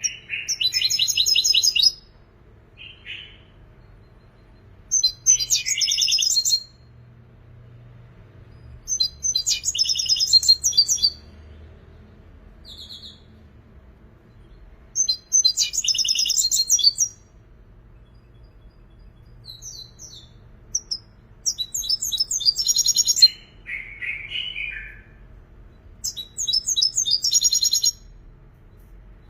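European goldfinch singing in bursts of rapid, high twittering, each burst about two seconds long, with pauses of a few seconds between them, six times over.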